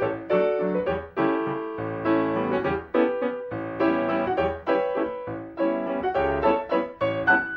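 Solo piano music with a steady beat, low bass notes recurring under the chords and melody.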